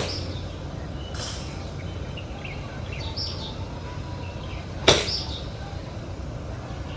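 A golf wedge striking a ball once with a sharp click about five seconds in. Birds chirp faintly over steady outdoor background noise.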